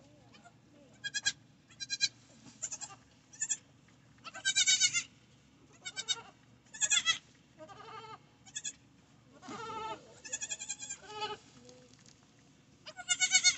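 Nigerian Dwarf goats bleating, most likely the newborn kids: a string of a dozen or more short, high-pitched calls, with a few lower calls mixed in.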